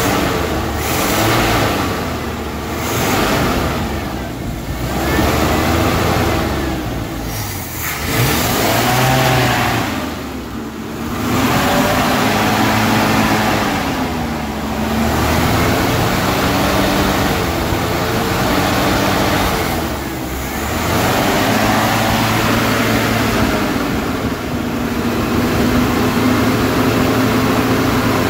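1974 Chevrolet C30's V8 engine running at raised revs, rising and falling in pitch several times, while Berryman fuel-system cleaner is fed down the carburetor. It is running again after sitting for about five years. Wind gusts on the microphone come and go.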